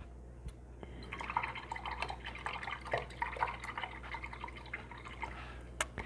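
Paintbrush being swished and tapped in a jar of rinse water: light, irregular splashing and small clicks, starting about a second in, with one sharper click near the end.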